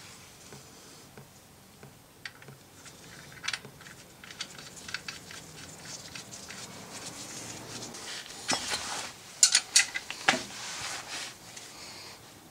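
Scattered metallic clicks and clinks of a socket wrench being fitted to and worked on a drain plug under a Honda S2000, loudest in a quick cluster of clicks about two-thirds of the way through.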